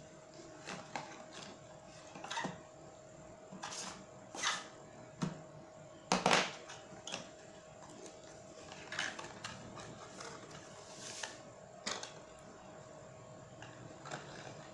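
Paperboard product box being opened and handled: its flaps and inner tray sliding, scraping and tapping, in scattered short noises, the loudest about six seconds in. A faint steady hum runs underneath.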